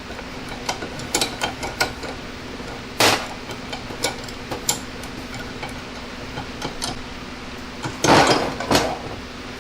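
Scattered metal knocks and clinks from handling the aluminum pipe and saw while setting up the cut, with a louder knock about three seconds in and a short clatter near the end. The saw is not running.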